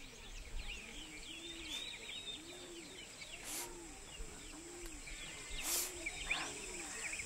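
Outdoor bird ambience: many small birds chirping, over a low rounded call that repeats a little faster than once a second from about two seconds in. Two brief hissing sounds come in the middle.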